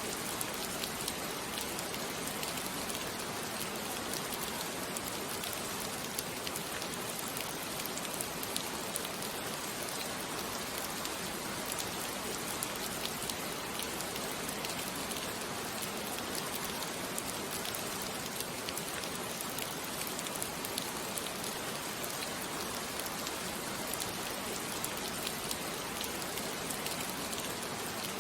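Steady rain falling, an even hiss with scattered pattering drops, used as a background ambience track.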